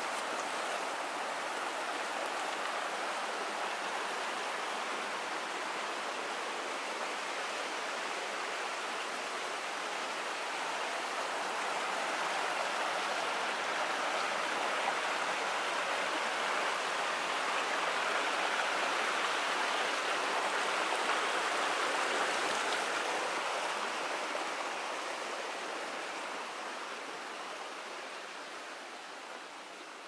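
A small waterfall cascading over rocks into a pool: a steady rush of water that swells in the middle and fades away over the last few seconds.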